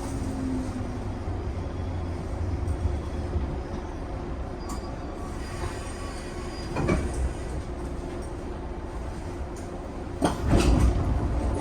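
415 series 1500 electric train running along the Nagasaki Main Line: a steady low rumble of wheels on rail, broken by a few sharp knocks, the loudest cluster about ten seconds in.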